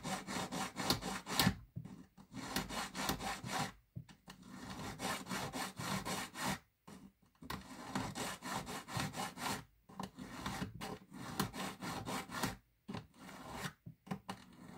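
Needle file rasping across the broken end of a silver ring shank in quick, short strokes, in several runs broken by brief pauses. The grainy break is being filed flat and clean so the ends can be soldered.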